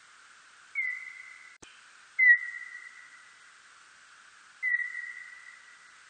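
Calls of a birdlike noctule bat, made audible: three whistle-like chirps at about the same pitch. Each starts sharply with a slight downward slide, then holds and fades over about a second. The second chirp is the loudest, and a brief click comes between the first two, over a steady hiss.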